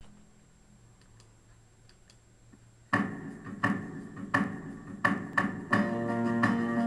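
Near silence with a few faint ticks, then about three seconds in an instrumental backing track starts: an intro of plucked notes in a steady pulse, about one every 0.7 s, with held chords and bass joining near the end.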